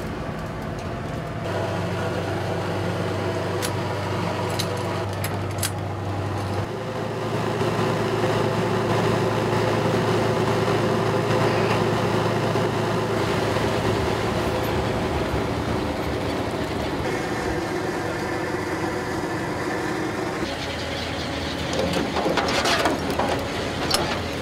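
A fishing boat's engine and deck machinery running with a steady low hum, its tone shifting abruptly a few times. Near the end, metal chain clanks and scrapes against a steel trawl door.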